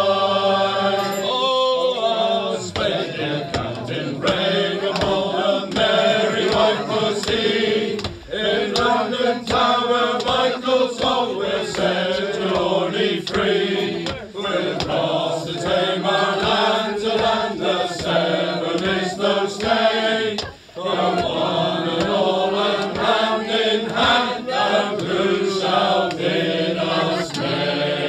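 A small group of men singing together unaccompanied, in a pub-singing style, their voices blending in harmony. The singing runs on, with short breaks between phrases about eight and twenty-one seconds in.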